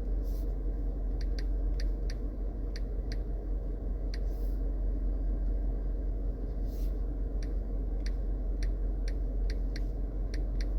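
Steady low hum with faint, irregular clicks scattered through it and a few soft brief rustles.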